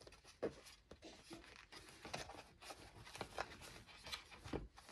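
Cardboard packaging being handled: fingers scraping and tapping at a box insert, giving a scatter of small clicks and faint rustles.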